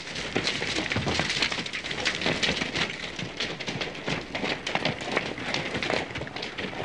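Hooves of several galloping horses on a dry dirt trail: a dense, steady clatter of hoofbeats.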